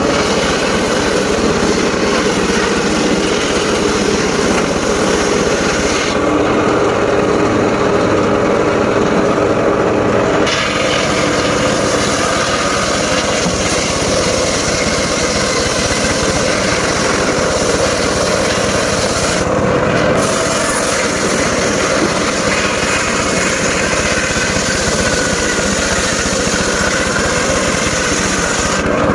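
Mobile circular sawmill running and sawing through wood, a loud continuous whine and rasp of the blade in the cut. The higher, sharper part of the sound eases for about four seconds around six seconds in and again briefly around twenty seconds in.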